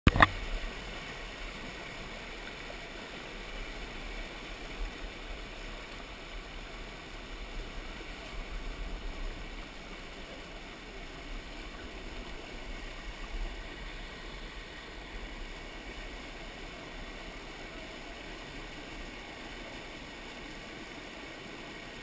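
Mountain stream rushing over boulders in a small rapid, heard close at water level as a steady rushing hiss with a low rumble underneath. A single sharp knock right at the start.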